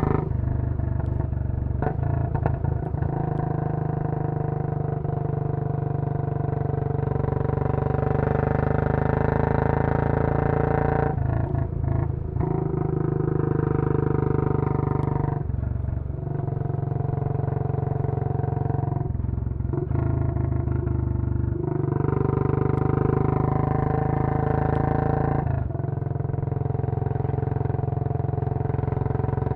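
Royal Enfield Bullet 500's single-cylinder engine through a Punjab long-bottle silencer, heard from on board while riding hard. The note climbs repeatedly and breaks off briefly several times, like gear changes between stretches of acceleration.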